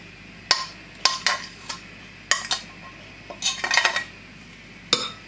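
A spatula and a fork clink and knock against a glass mixing bowl as mashed potato is scraped off the spatula. The knocks are sharp and come in about six short irregular clusters.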